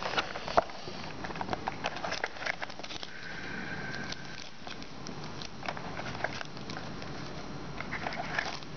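Crinkling and rustling of packaging with many irregular small clicks, as a sealed trading-card hobby box is unwrapped and opened by hand.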